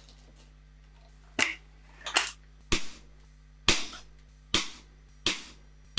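SMK XS20 .177 air rifle firing a string of about six sharp shots, each well under a second apart, each with a short ring-out in the room.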